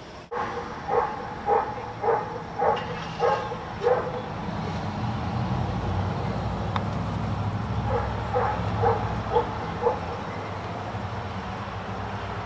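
A dog barking in two runs of about six short barks each, roughly two a second, the second run starting about eight seconds in. A low rumble runs underneath, swelling from about four seconds in.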